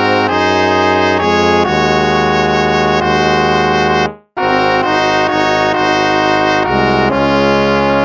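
Instrumental hymn played on brass, held chords that move from one to the next, with a short gap about halfway where one phrase ends and the next begins.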